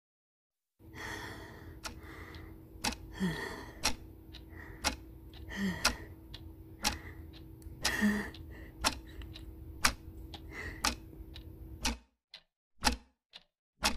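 Tense dubbed sound effects: a steady low drone with a faint hum, irregular sharp clicks or knocks about once a second, and several breathy, frightened gasps. The drone cuts off about twelve seconds in, leaving a few isolated clicks.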